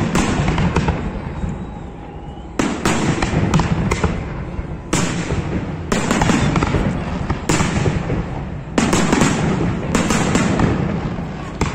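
Aerial firework shells bursting in a rapid volley: a string of bangs and crackling, with a fresh loud burst every second or two.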